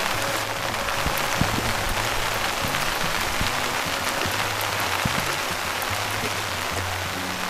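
Rain pouring steadily, an even hiss of falling drops, with background music's low notes underneath.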